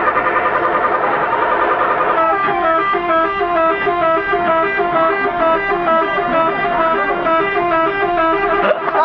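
A bus's telolet horn, a set of tuned air horns, playing a melody. The notes step quickly up and down in a regular run, and the tune comes through clearly from about two seconds in.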